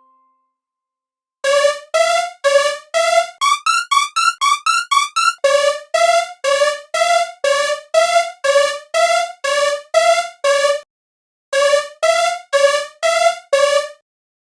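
Japanese railroad crossing warning bell, electronic, ringing in an alternating two-note clang at about two or three strikes a second. For a couple of seconds the strikes speed up to about five a second, and near the end they break off briefly and start again.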